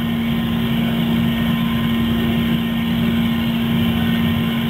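Steady mechanical hum: one constant low tone over an even rumbling noise, unchanged throughout.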